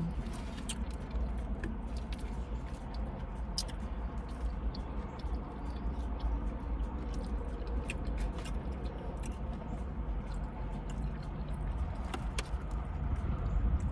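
A person chewing a mouthful of food close to the microphone: scattered small clicks and smacks over a steady low rumble.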